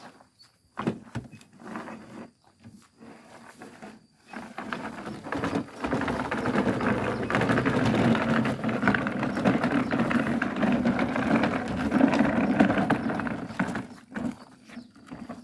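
Plastic storage box holding toy figures dragged by a rope over grass and gritty ground, scraping and rattling steadily from about four seconds in until near the end.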